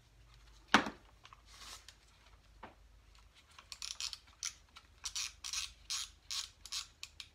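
Tools being handled on a wooden workbench: one sharp knock about a second in, then a quick run of scratchy clicks and scrapes, about three or four a second.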